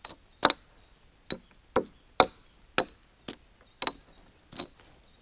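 Hatchet chopping into a fallen, lichen-covered log: about nine sharp strikes, unevenly spaced at a little under two a second.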